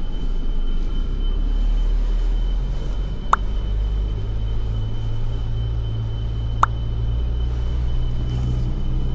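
Steady low road and engine rumble heard inside a Ford Everest SUV's cabin, with a faint steady high tone and two sharp clicks about three seconds apart.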